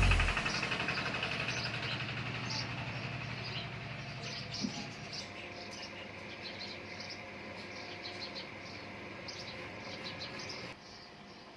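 The last chord of a guitar piece fades away slowly, with small high bird chirps scattered throughout. The background drops suddenly near the end.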